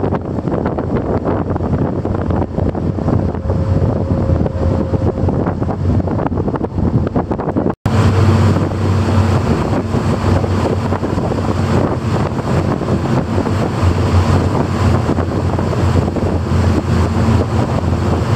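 Wind buffeting the microphone on the open deck of the high-speed catamaran ferry Ocean Arrow, over the rush of its wake and a steady engine drone. The sound drops out for an instant about eight seconds in. After that the low engine hum is stronger.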